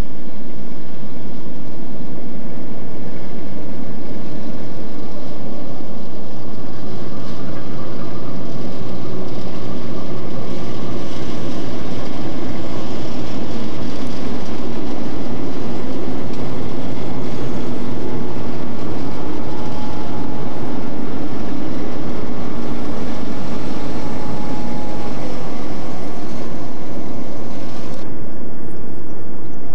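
Diesel locomotives hauling a freight train past at low speed: their engines run with a steady low drone over the rumble of wheels and wagons. A thin steady squeal joins in past the middle, and the sound turns abruptly duller near the end.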